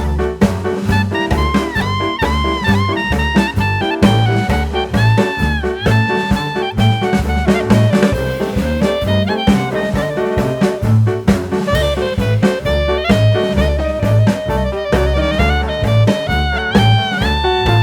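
Background jazz music with horns (trumpet and saxophone) over a steady swing beat on drum kit and bass.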